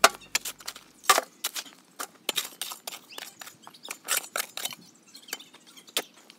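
Hand digging in hard clay soil: a shovel chopping and scraping into the ground and dirt thrown into a wheelbarrow, making an irregular string of short, sharp crunching strikes, several a second at times.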